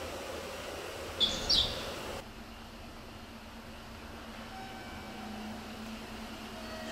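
Steady station background noise with two short, high chirps about a second in; after a sudden change near two seconds, a quieter steady low hum.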